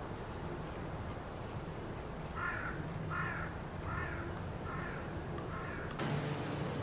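A crow cawing five times in a row, about one harsh call every three-quarters of a second, over steady wind noise. Near the end the hiss rises suddenly.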